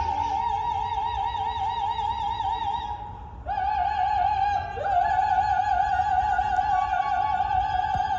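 Operatic solo voice holding long high notes with wide, even vibrato. A short break about three seconds in is followed by a scoop up into a second long sustained note.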